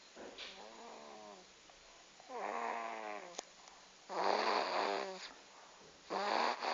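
A sleeping baby snoring heavily: four rasping snores on the breath, about two seconds apart, the later three louder than the first.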